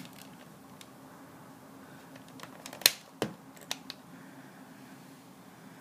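Buttons on a digital alarm clock being pressed to set the time: a few sharp plastic clicks, the loudest about three seconds in and a quick cluster just after, over a faint steady low hum.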